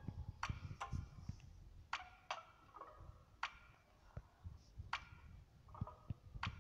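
Faint, irregular clicks and ticks, about one a second and sometimes in quick pairs, a few followed by a short ringing tone.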